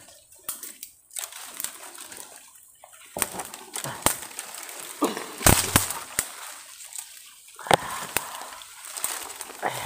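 Leaves rustling and dry twigs and branches snapping as someone pushes through dense brush, with a scatter of sharp cracks, the loudest about five and a half seconds in.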